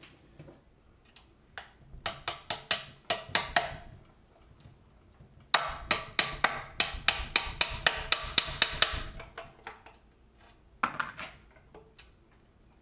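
Hammer tapping a skinny bolt used as a punch to drive the governor arm out through a Honda-clone engine's crankcase: a short run of sharp metal taps, then a faster run of about four taps a second for several seconds, and a couple more near the end.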